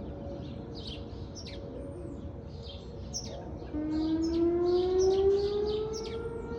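Whelen 4004 electronic outdoor warning siren starting its test tone about halfway through: it comes in low, rises in pitch for about two seconds, then holds a steady note. Birds chirp throughout.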